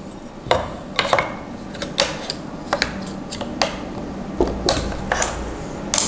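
Irregular sharp clicks and knocks, about a dozen, from hands working the handle grip of a Moza Air 2 handheld gimbal.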